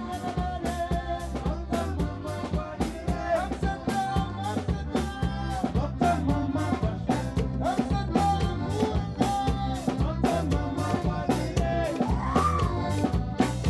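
Funaná band music with a fast, steady beat from drums and percussion under a diatonic accordion (gaita) melody.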